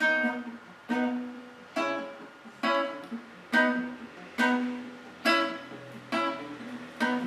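Acoustic guitar strumming chords in a reggae-style offbeat rhythm, with evenly spaced strokes a little under one a second, each chord ringing briefly and then fading.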